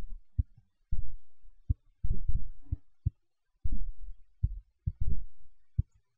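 A series of low thumps at uneven intervals, some single and some in quick clusters, with silence between them.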